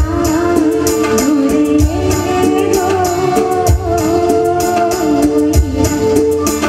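A woman singing a song into a microphone, backed by electronic keyboards and a drum kit keeping a steady beat.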